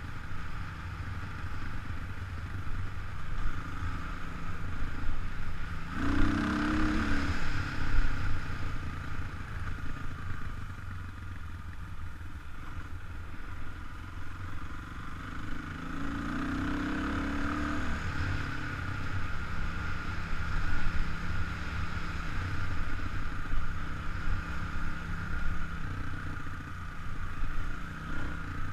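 Kawasaki KLX 300 dirt bike's single-cylinder four-stroke engine running on a trail, heard from a helmet-mounted camera. The engine revs up twice, about six seconds in and again around sixteen seconds in, then settles back.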